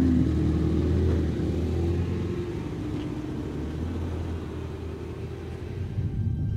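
Small hatchback car pulling away and driving off, a steady low engine and road rumble. Music comes in near the end.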